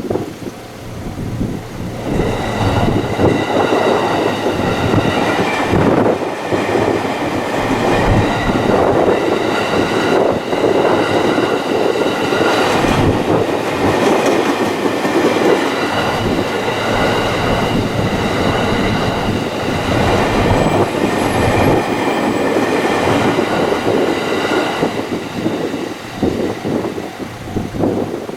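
Train passing over a level crossing on the JR Takasaki Line: loud rolling of wheels on rail with clickety-clack over the joints, building about two seconds in, holding for some twenty seconds with high steady tones over it, and fading near the end.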